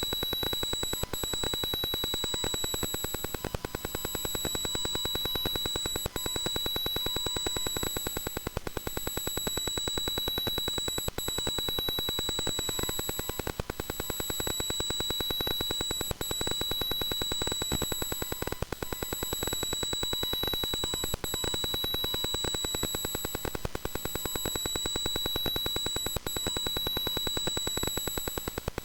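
Electronic noise coming through V-MODA headphones: a steady high-pitched whine over a dense, rapid buzz, briefly breaking and dipping about every two and a half seconds.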